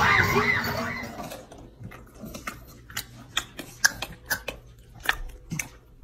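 Crowd noise fades out within the first second or so, then an English bulldog chews dry cereal: a string of irregular sharp crunches, about two a second.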